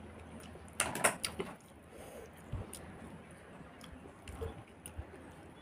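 Mouth sounds of a person eating rice and curry by hand: chewing, with a cluster of wet lip and mouth clicks about a second in and a few fainter ones later.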